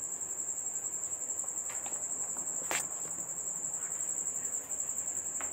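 Steady high-pitched insect chirring, pulsing rapidly, with a few light clicks from a mid clamp being fitted on the solar panel mounting rail; the sharpest click comes about halfway through.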